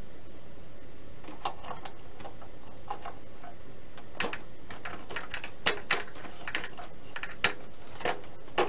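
Small clicks and taps as an electric RC airplane motor and its mount are handled and fitted against the plane's firewall. They come at irregular intervals, getting sharper and more frequent in the second half, over a steady background hum.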